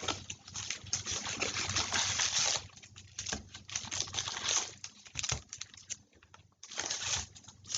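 Foil card-pack wrappers crinkling and tearing as trading-card packs are handled and opened, in irregular rustling bursts with a few light clicks.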